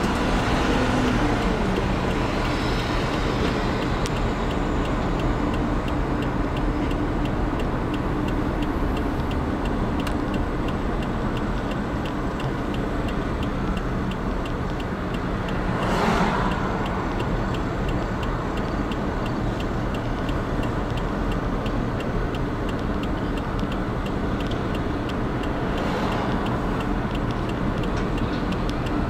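Steady road and engine noise of a vehicle driving on a highway, with an oncoming vehicle passing about halfway through and another near the end. A faint, regular ticking runs underneath.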